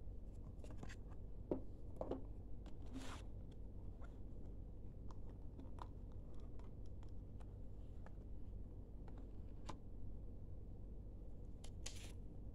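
Cardboard smartphone packaging being handled: scattered light taps and clicks of the box and lid, with two brief scraping swishes of cardboard or paper sliding, about three seconds in and again near the end, over a steady low hum.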